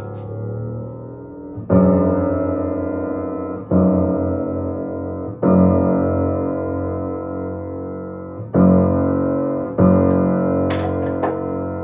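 A single bass note on a Steinway L grand piano struck five times, about every one and a half to three seconds, each note ringing and fading before the next. It is the newly installed wound bass string being tuned up to pitch with a tuning lever.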